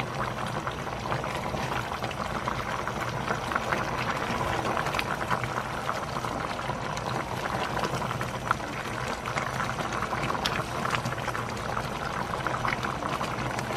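Pot of creamy chicken macaroni soup bubbling at a simmer: a steady crackle of many small pops and gurgles from the thick broth.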